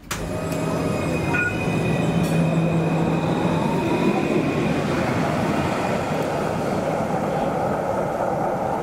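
Tram running on the rails: a steady rumble carrying thin whining tones, one of which rises in pitch over the first few seconds. The sound starts suddenly.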